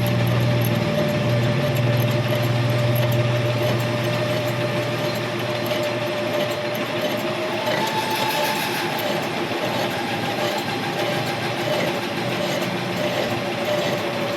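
Metal lathe running steadily, turning the weld-built-up bearing seat of a tricycle's front wheel hub. A low hum fades out about five seconds in.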